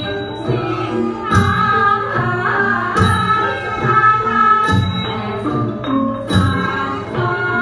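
Thai classical ensemble music: a held melody over mallet percussion such as a xylophone, marked by a sharp struck beat about every second and a half to two seconds.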